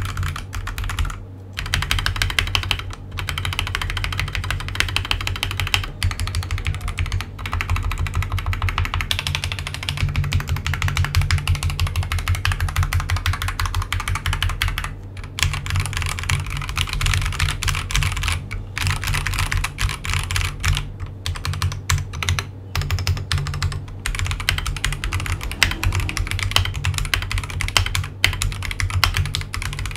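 Akko 3098B mechanical keyboard with Akko Jelly Pink linear switches (45 g) and ASA-profile PBT keycaps being typed on quickly and without let-up: a dense run of keystrokes, broken only by a few brief pauses.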